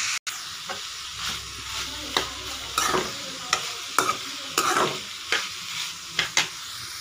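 Chopped vegetables and chicken pieces sizzling in a pan while a spatula stirs them, with a steady frying hiss and irregular scrapes of the spatula against the pan.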